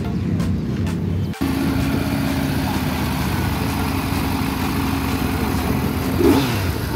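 Motorcycle engines idling steadily, with a sudden break about a second and a half in.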